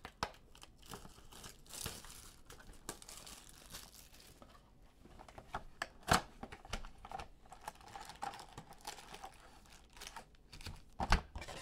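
Plastic shrink-wrap torn and crinkled off a cardboard trading-card box, then the box opened and the foil packs pulled out: a run of rustles, crinkles and small clicks, with one sharper snap about six seconds in.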